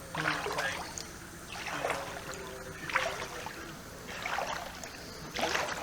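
Rhythmic splashing in floodwater: five separate sloshes, about one every second and a half, like steps wading or strokes through standing water.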